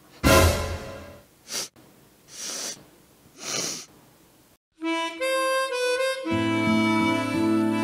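A man sniffing hard at a pair of shoes, four sniffs, the first the loudest and longest. About five seconds in, harmonica music starts, and a low bass line joins it a second and a half later.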